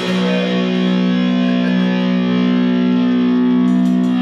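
Distorted electric guitar and bass holding one sustained chord, ringing out steadily with no drums under it.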